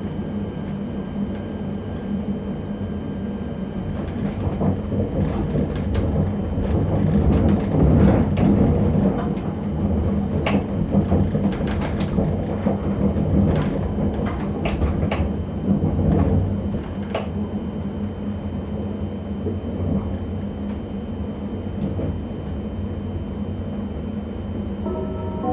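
ČD class 640 RegioPanter electric multiple unit running through station points, heard from the driver's cab: a steady low running hum, with a run of clicks and knocks from the wheels crossing switches and rail joints between about 5 and 17 seconds in.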